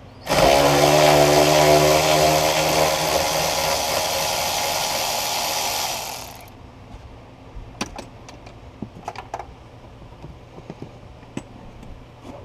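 Cordless power tool with a socket running for about six seconds, backing out the bolt of a ground wire. It is followed by a few light clicks and clinks.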